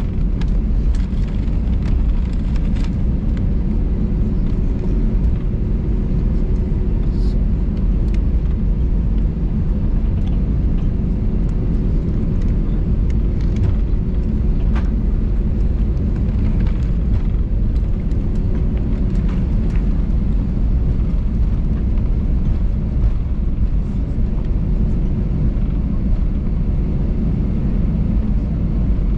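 Steady low rumble inside the cabin of an Airbus A320 taxiing to the runway, its jet engines at low taxi thrust, with a faint steady hum over it.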